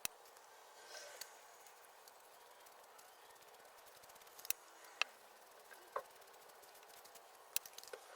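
A few faint, scattered clicks and light taps over quiet room tone, from a clay pot, saucer and paintbrush being handled while painting.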